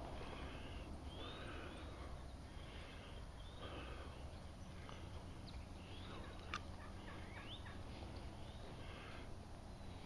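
Wild turkeys calling, a faint string of short calls about every second. One sharp click comes about six and a half seconds in.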